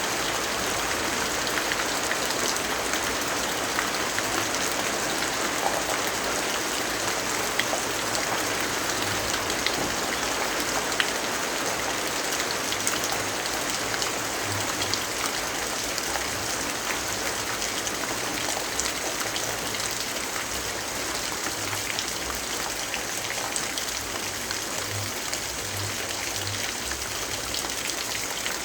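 Steady rainfall, an even dense hiss of falling rain, with scattered sharp ticks mixed in.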